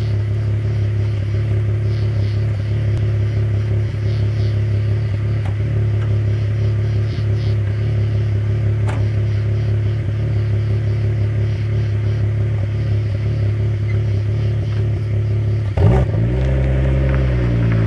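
VW VR6 narrow-angle six-cylinder engine with a Flowmaster exhaust, idling steadily in a 1990 Jetta MK2. About two seconds before the end it revs up sharply and the pitch then slides down as the car moves off.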